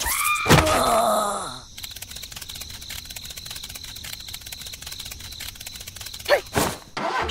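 Cartoon sound effects for a stop-motion clip. It starts with a short high character vocalization that glides in pitch like a strained groan, followed by a fast, even light ticking for several seconds. Near the end come two quick swooshes.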